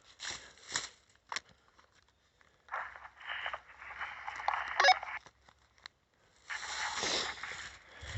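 Footsteps crunching and rustling through dry fallen leaves on a trail, in uneven bursts with short pauses between them.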